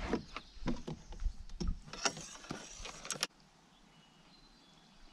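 Irregular knocks, clicks and rattles of handling in an aluminium canoe as a caught largemouth bass is laid on a measuring board, cutting off suddenly about three seconds in to near quiet.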